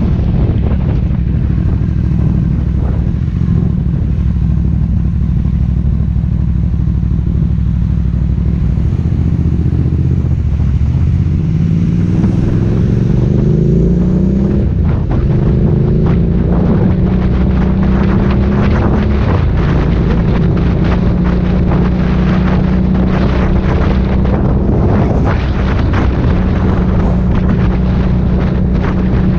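Aprilia Dorsoduro 750 V-twin with an Akrapovic exhaust, heard from on the bike: running steadily at low speed, then rising in pitch as it accelerates, with a gear change, and settling into a steady cruise. Wind buffets the microphone in the second half.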